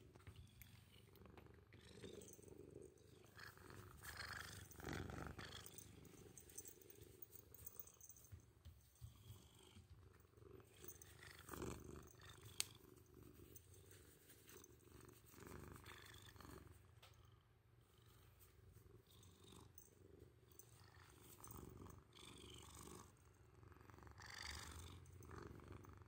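Orange tabby kitten purring softly while being stroked, with occasional louder brushing sounds of the hand on its fur.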